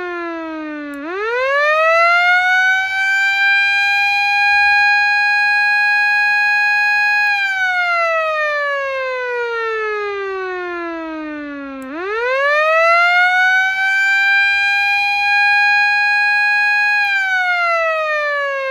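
Osaka Siren Model 5S motor siren sounding loud, twice in succession. It winds up fast to a steady high wail, holds it for about six seconds, then glides slowly down in pitch as its spinning rotor coasts.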